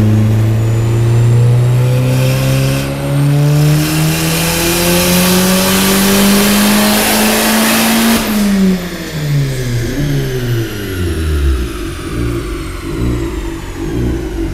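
MK4 Volkswagen 1.8T 20-valve turbocharged four-cylinder making a full-throttle pull on a chassis dyno. Its pitch climbs steadily for about eight seconds while a loud hiss builds over it. Then the throttle closes and the revs fall away to idle.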